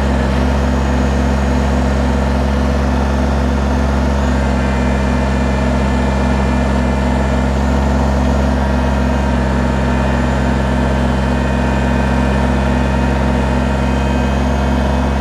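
Kubota compact tractor's diesel engine running steadily at an even pitch while the loader grapple holds and lifts a log.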